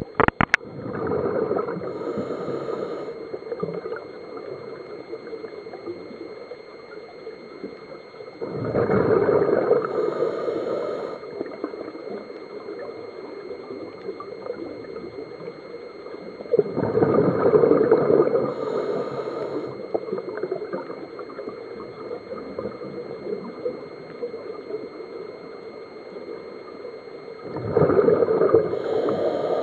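Scuba diver breathing through a regulator underwater: four bursts of exhaled bubbles gurgling about every eight or nine seconds, each lasting two to three seconds and ending in a short hiss.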